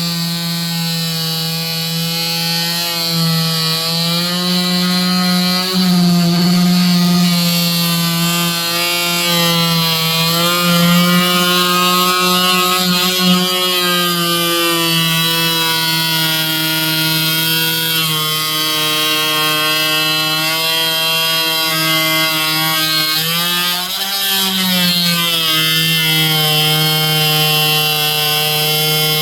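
Handheld electric power tool running continuously as it cuts a hinge recess into a wooden door, its motor pitch dipping and recovering several times as the cutter bites into the wood.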